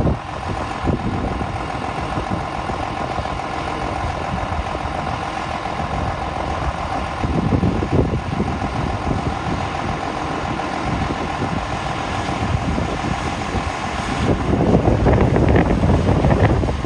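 Tractor engine running steadily, growing louder with a rushing noise near the end.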